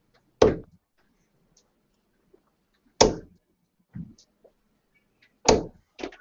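Three darts striking a bristle dartboard one after another, about two and a half seconds apart: three sharp thuds.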